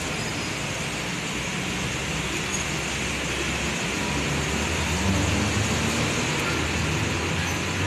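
Steady road-traffic and station background noise: an even hiss with a low hum underneath, with no distinct events standing out.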